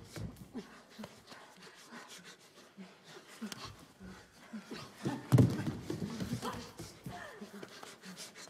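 Dancers' heavy breathing and scuffing footsteps on a bare stage floor, with a loud thud about five seconds in.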